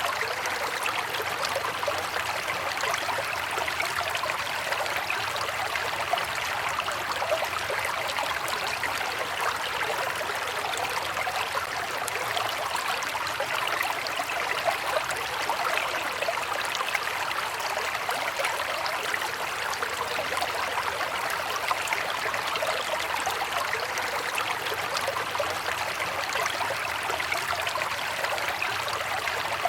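River water flowing steadily over stones, a continuous babbling rush with fine splashing detail.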